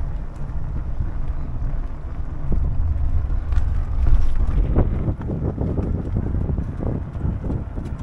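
Wind buffeting the microphone of an action camera on a moving fatbike, a steady low rumble. From about five seconds in there is a run of irregular short rattles.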